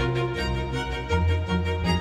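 Background music with bowed strings over sustained low bass notes; the bass moves to a new note about a second in.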